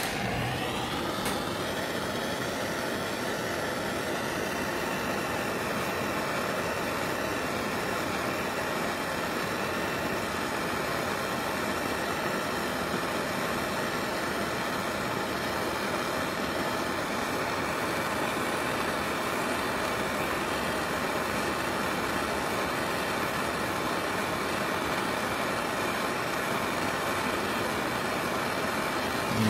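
Gas torch flame with a steady hiss, coming on suddenly and cutting off at the end: the torch is annealing a silver coin ring to make it pliable.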